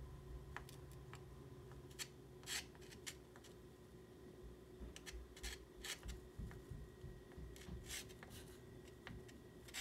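Soft pastel stick scraping and rubbing across a board in short, irregular strokes, faint, over a thin steady hum.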